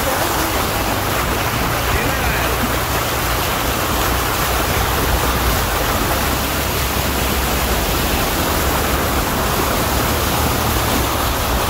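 Steady rush and splash of water thrown up by a Jeep's front tyre as it drives through a flooded dirt track, with a low rumble underneath.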